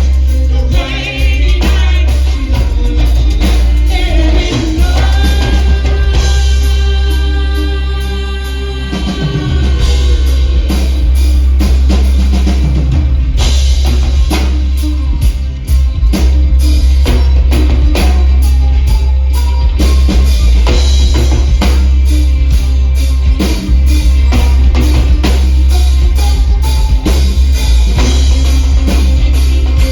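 Live folk-rock band playing with singing, drum kit and guitar over a heavy bass. Long held notes stand out for several seconds near the start.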